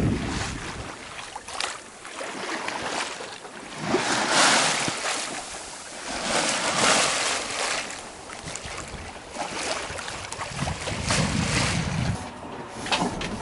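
Sea water washing along a sailboat's hull under slow sail, swelling and fading in surges every couple of seconds, with some wind on the microphone.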